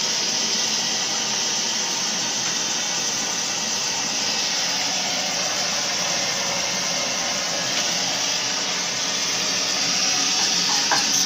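LPG wok burner running at full flame under a covered wok: a steady hiss that holds at one level throughout.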